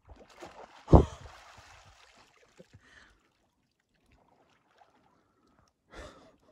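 Lake water splashing as a boy wading waist-deep scoops it up and washes himself, with one loud splash about a second in and another shorter one near the end; sharp breaths come with the splashing.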